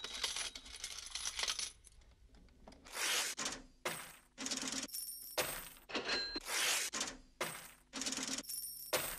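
A series of short, bright metallic jingling crashes, about half a second each and roughly one to two a second, some with a brief ringing tone.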